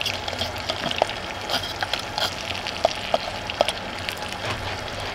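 Goose fat sizzling in a hot Ridge Monkey pan, a steady crackle of small pops.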